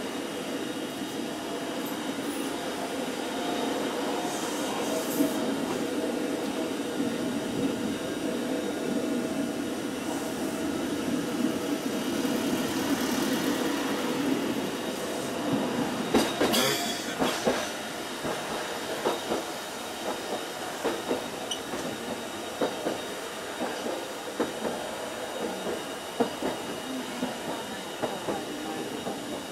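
Fukui Railway 770-series electric tram running on street track, heard from the driver's cab: a steady hum of motors and wheels on the rails. A cluster of sharper clicks comes about sixteen seconds in, followed by many small wheel clicks through the rest.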